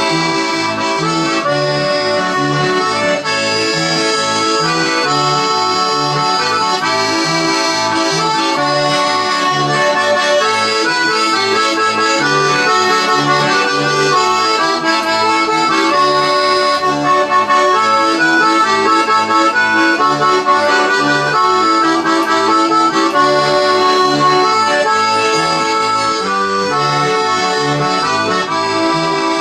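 Accordion music: a traditional-style tune of sustained chords over bass notes that alternate in a steady beat, running without a break.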